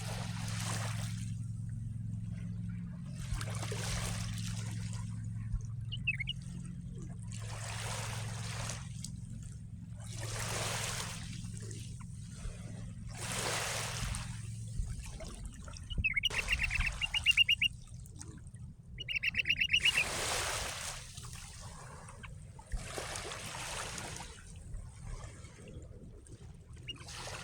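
Small sea waves washing onto the shore every two to three seconds, with a songbird giving two loud, rapid trills in the middle and a short chirp earlier. A low steady hum underneath stops about halfway.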